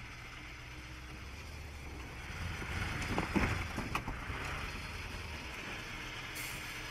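Diesel engine of a loaded KAMAZ logging truck running low and steady as the truck creeps through a flooded, icy crossing, with water sloshing and a few brief splashes about three to four seconds in.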